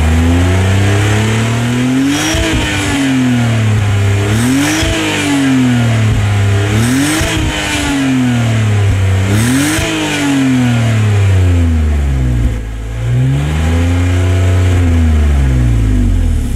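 BMW E46 330ci's 3.0-litre straight-six running through its stock valved exhaust, revved about six times in a row. Each rev rises quickly and falls back more slowly, with hiss at the top.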